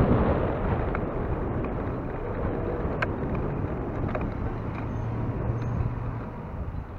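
Traffic noise, a steady rush that eases over the first couple of seconds, with a few faint clicks.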